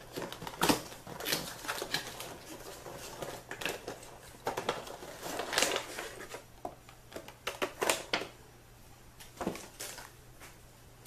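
Cardboard window box being opened and a clear plastic blister tray slid out of it: irregular clicks, crinkles and scrapes of cardboard and thin plastic, quieter near the end.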